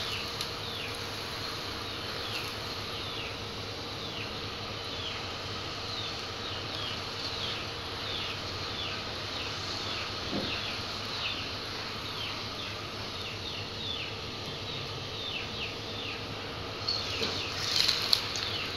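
Paratha frying in ghee on a hot iron tawa, a steady sizzling hiss, as a spatula presses it down, with a clatter of the spatula on the tawa near the end. Over it, short high chirps that fall in pitch repeat a few times a second.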